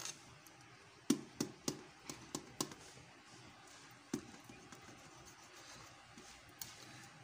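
A kitchen knife cutting a piece out of a baked bread on a steel tray: a quick run of about six sharp clicks and taps about a second in, then one more tap about four seconds in.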